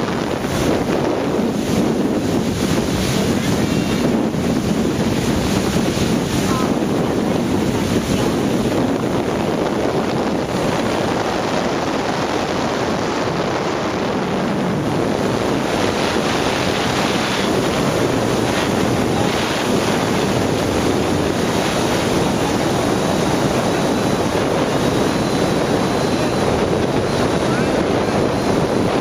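Wind buffeting the microphone and the steady rush of water from a motorboat running at speed, loud and unbroken throughout.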